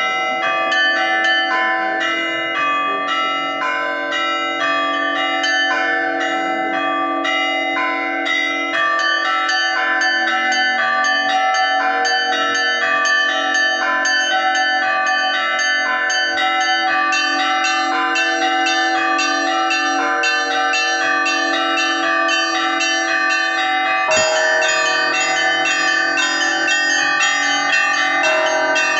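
Russian Orthodox church bells rung in a liturgical peal: rapid repeated strikes on the small high bells over sustained lower bell tones, all ringing together. Near the end a deeper bell comes in and the pattern changes.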